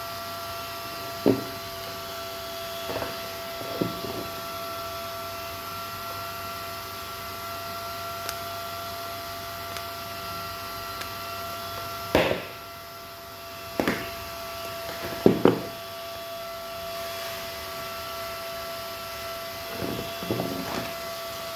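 A steady hum made of several high, level tones, with scattered knocks and clicks, the loudest about a second in, around the middle and a few seconds later.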